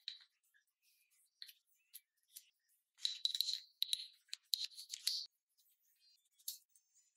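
Metal parts of a homemade airgun built from a motorcycle shock being handled and fitted together: scattered small clicks and knocks, with a denser run of scraping and clinking from about three to five seconds in.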